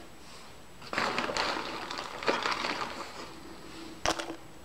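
Chopped raw onion being handled and dropped by hand into a crock pot of soup: a rough rustling that starts about a second in, then a single sharp click near the end.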